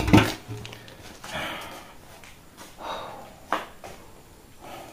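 A person breathing heavily close to the microphone: a few short, noisy breaths about a second and a half apart, with a single sharp click about three and a half seconds in.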